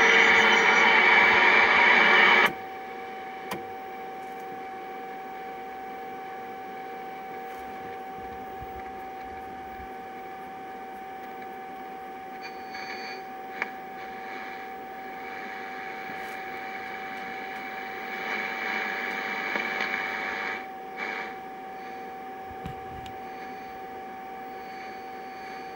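A Yaesu FRG-7 shortwave receiver tuning the bands with no station on. Loud static drops suddenly to a quieter hiss about two and a half seconds in. After that a single steady whistle runs on, the hiss swells for a couple of seconds later on, and there are a few faint clicks.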